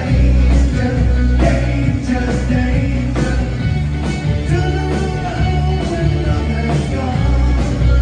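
Live new wave rock band playing through a concert PA: a heavy bass line and drums under electric guitars and synthesizer, with a lead vocal over the top.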